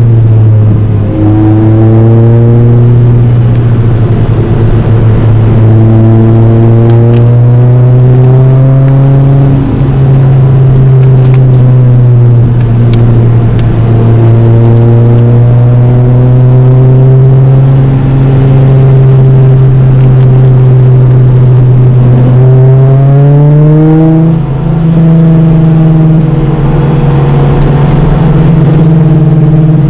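Toyota Celica GT-S's 1.8-litre four-cylinder engine, heard from inside its cabin, pulling hard with its pitch rising and falling as the throttle works, over steady road noise. The pitch drops about a second in, as at a gear change, eases off around a third of the way through, and climbs sharply late on.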